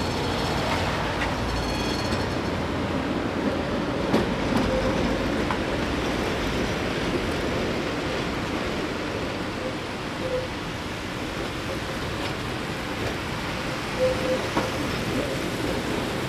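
Trams, the Tatra T4SU among them, rolling through a curved junction with a steady rumble of wheels on rail and a few brief wheel squeals.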